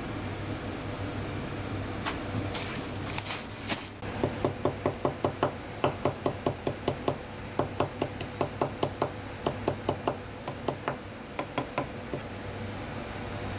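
Chef's knife chopping green herbs on a plastic cutting board: a quick, even run of sharp knocks, about four a second, starting about four seconds in and stopping shortly before the end.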